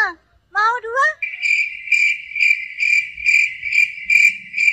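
Cricket chirping in a steady rhythm, about two chirps a second, starting about a second in after a brief high-pitched voice sound.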